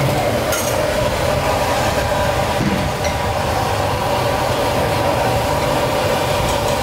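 A steady, loud mechanical roar with a low hum underneath and faint steady tones.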